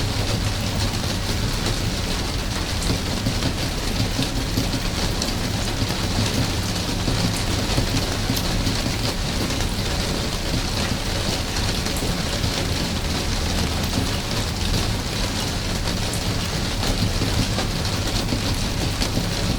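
Steady rain falling, with many individual drops ticking close by over an even hiss, and a steady low rumble beneath.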